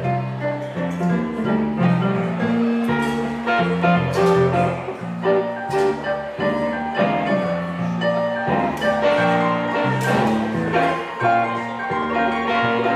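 Live blues duo playing: archtop electric guitar over electric keyboard, a steady run of notes throughout.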